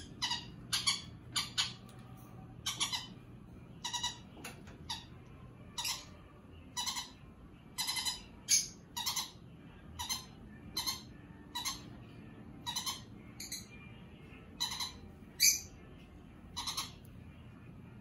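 Green-cheeked conure chick giving short, harsh squawking calls over and over, about two a second: the food-begging calls of a baby parrot being hand-fed.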